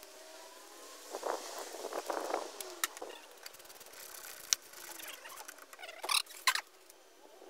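Scattered clicks, knocks and rattles of a small hand tool and parts being handled at a motorcycle's battery terminal, with two louder clicks about six seconds in.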